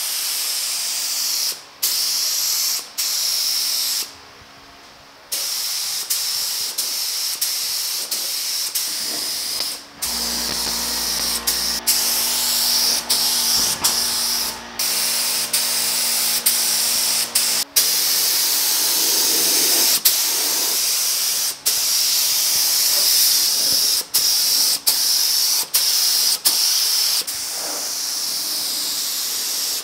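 Gravity-feed paint spray gun spraying primer: a loud, steady compressed-air hiss, cut by many brief breaks and one longer pause about four seconds in.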